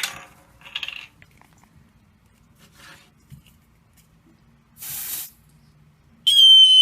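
A brief aerosol spray hiss of test smoke about five seconds in, then about a second later the vintage BRK 1200 smoke alarm goes off in response to the smoke: a loud, steady, high-pitched tone.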